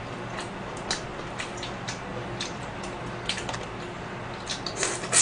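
A cooked shrimp being peeled by hand: light, irregular clicks and crackles of the shell breaking, with a denser cluster of them near the end.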